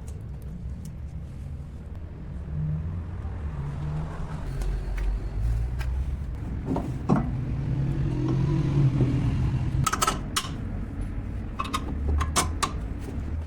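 A low engine-like rumble that swells in the middle, with several sharp metallic clicks and knocks in the second half.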